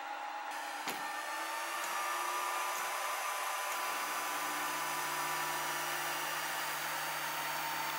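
Delta 3D printer's cooling fans whirring steadily as a print starts from the SD card, with one click about a second in and a low steady hum joining at about four seconds.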